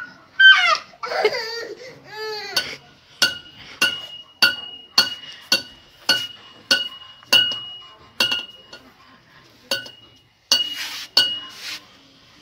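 A toddler's high squealing cries, then a thin metal rod struck again and again on a concrete floor: sharp metallic clinks about twice a second, each ringing briefly.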